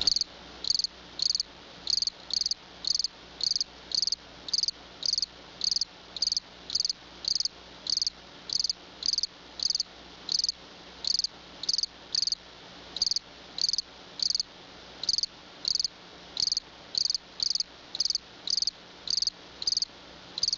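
Insect chirping in an even rhythm, about two short high-pitched chirps a second.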